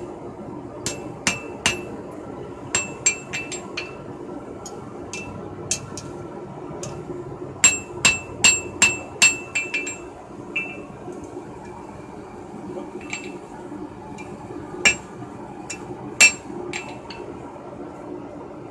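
Hand hammer striking red-hot steel on an anvil, forging a finger-ring knife blade: irregular groups of sharp ringing blows, with a quick run of about six strikes around eight to nine seconds in. A steady low hum runs underneath.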